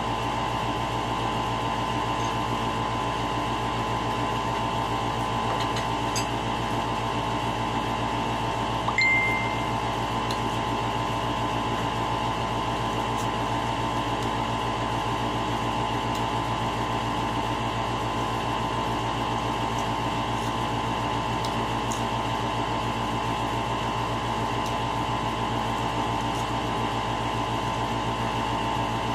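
A steady machine hum with several fixed tones, and a short high beep about nine seconds in.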